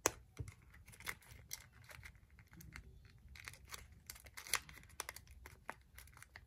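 Origami paper being handled: soft, irregular rustles and small crackles as a flap is tucked into a pocket of a folded paper cube and pressed in with a fingernail.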